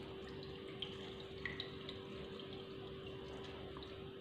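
Faint steady hum over a low even background noise, with a few small ticks.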